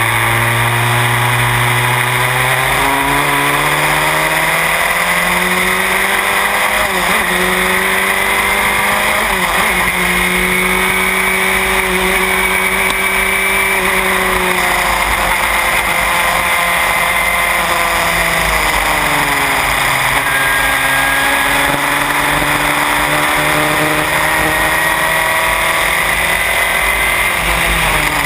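Onboard sound of a Van Diemen Formula Renault's four-cylinder engine at racing speed. Its pitch climbs and drops back in steps with the upshifts, sinks about two-thirds of the way through as it brakes and changes down, and climbs again near the end.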